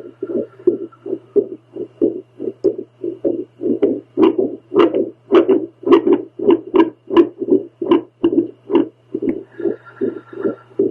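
A woman's heartbeat picked up by a home Doppler monitor: rapid whooshing pulses, about three a second, over a steady low hum. The pulses grow louder and sharper in the middle. The rhythm is one the owner describes as very irregular.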